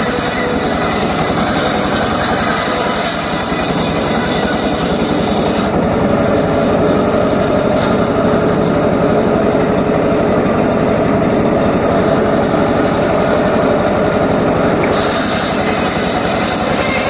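Engine-driven saw running steadily under load, cutting timber, with a fast low engine pulse under the noise of the blade in the wood. The high hiss drops away about six seconds in and comes back near the end.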